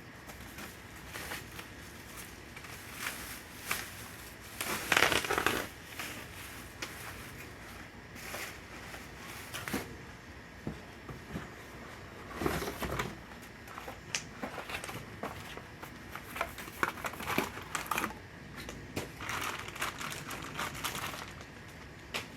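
Packaging crinkling and rustling as bike parts are handled and unwrapped, with scattered clicks and knocks. The loudest rustle is about five seconds in.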